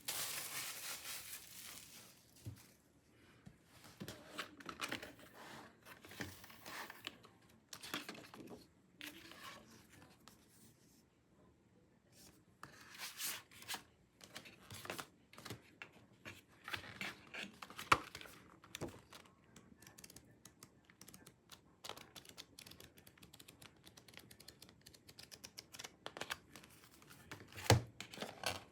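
Album packaging being opened by hand: plastic wrapping tearing and crinkling in irregular rustles, with a few sharp taps.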